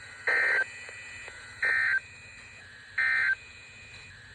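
Emergency Alert System end-of-message signal: three short, identical bursts of buzzing digital data tones, about a second and a third apart, marking the close of the alert.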